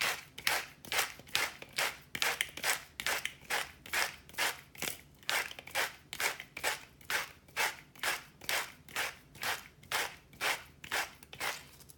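Hand-turned salt mill grinding salt, a steady rhythm of short grinding strokes, a little over two a second.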